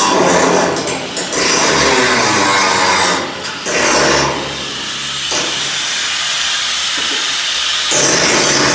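Handheld angle grinder grinding a steel window frame, a loud harsh hiss that eases briefly about one and three and a half seconds in and turns brighter and louder near the end as the disc bites harder.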